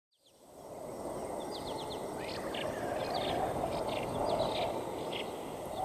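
Birds chirping in short, quick calls over a steady low rushing noise, fading in from silence at the start.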